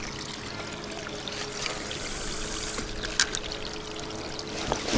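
River water running and trickling steadily at the bank, with one sharp click about three seconds in.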